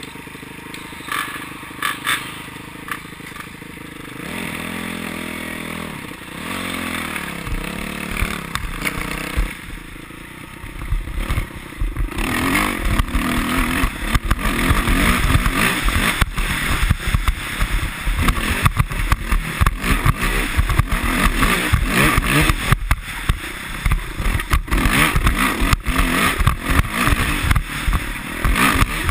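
Dirt bike engine pulling away, its revs rising and falling. From about twelve seconds in it gets louder and harsher as the bike runs hard along a rough dirt trail.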